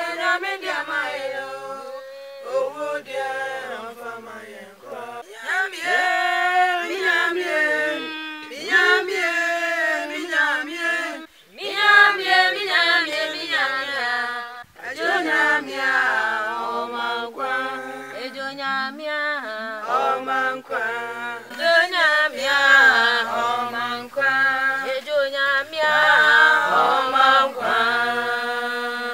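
A small group of men and women singing a church song together without instruments, in long sung phrases with short breaks between them.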